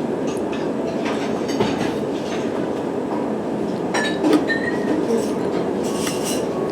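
Steady vehicle rumble with scattered clicks and knocks, and a brief high squeal about four seconds in.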